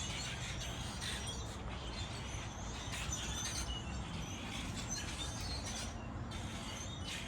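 A flock of small birds chirping constantly, many short high calls overlapping, over a steady low rumble.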